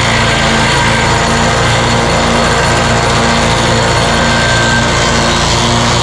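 Scag stump grinder running steadily, its spinning cutter wheel grinding into a tree stump.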